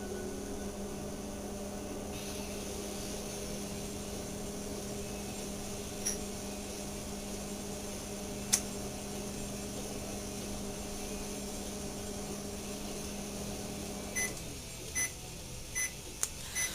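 Microwave oven running with a steady hum, then stopping about fourteen seconds in and beeping about four times as its 30-second countdown finishes. A sharp click sounds about eight and a half seconds in.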